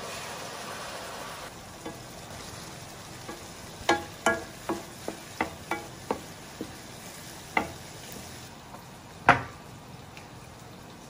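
Liquid poured into a hot frying pan hisses and sizzles for the first second or so. Then a wooden spoon stirring vegetables in the pan knocks against it about ten times, with one louder knock near the end.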